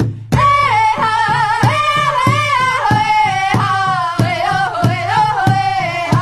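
Song with one voice singing long, wavering notes over a steady drum beat. The music breaks off for a moment right at the start, then comes back in.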